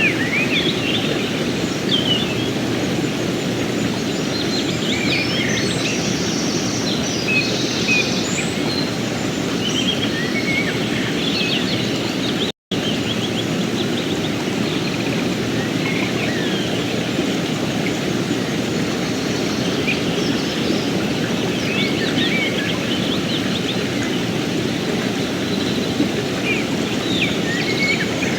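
Mountain stream flowing steadily, with birds chirping and calling over the water throughout. All sound cuts out for an instant about halfway through.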